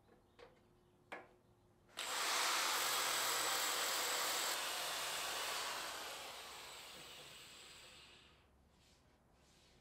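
A few light clicks, then a corded electric drill with a sanding disc starts about two seconds in, with a sudden rush of noise as it sands the inside of a spalted maple bowl. The sound holds steady for a couple of seconds, then fades gradually and dies away near the end.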